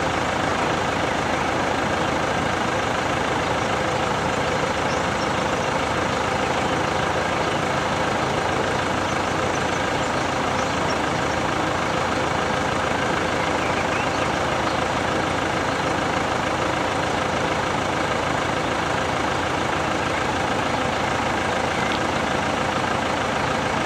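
Level crossing warning bells (two electric bells on an FS88 crossing) ringing continuously and evenly while the barriers are down, signalling that a train is approaching.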